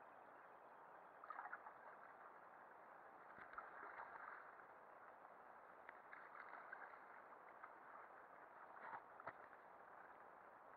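Faint water lapping and small scattered splashes around an inflatable canoe drifting on calm water, over a steady hiss.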